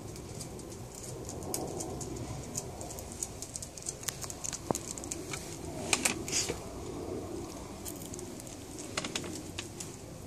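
A dog's claws clicking and tapping on paving stones as it walks, with the densest, loudest clicks about six seconds in and a few more near the end, over a steady low background hum.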